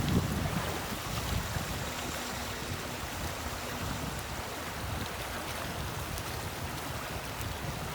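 Creek water flowing, a steady rushing noise.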